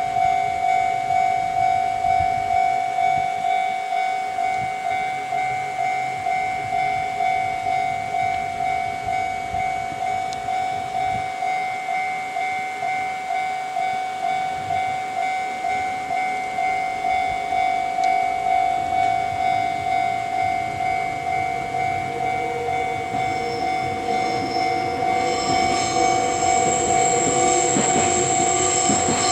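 Japanese railway level crossing's electronic warning bell ringing in a steady, even rhythm. Near the end a Meitetsu 6800-series electric train approaches and its running noise grows louder, with high whining tones over the ringing.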